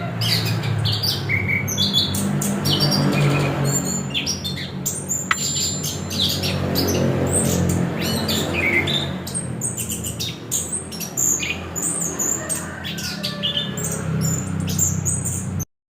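Chestnut-capped thrush (anis kembang) singing a dense, varied run of chirps, whistled slurs and harsher squawky notes over a steady low hum. The sound cuts off abruptly near the end.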